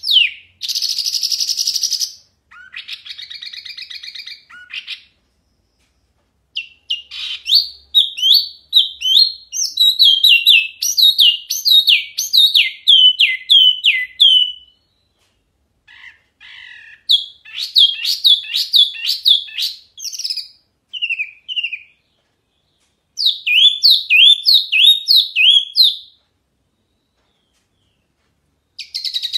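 A caged wambi mini songbird singing loud, clear phrases of rapid, sharply falling whistled notes, several a second, broken by short pauses. About a second in come harsh buzzy notes, then a softer buzzy trill.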